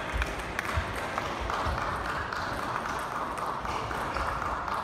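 Table tennis rally: the celluloid ball clicking off bats and table at irregular intervals, over a steady background hiss.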